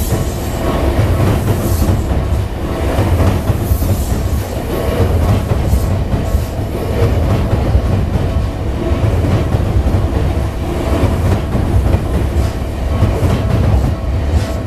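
Tokyu Toyoko Line electric commuter train passing close by at a level crossing: a loud, continuous low rumble of wheels on the rails, with frequent short clicks and faint steady high tones underneath.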